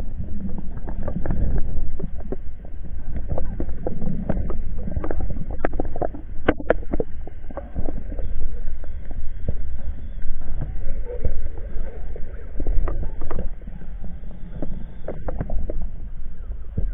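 Underwater sound picked up by a camera in a waterproof housing: a steady muffled low rumble of water moving around the diver, with many scattered clicks and knocks.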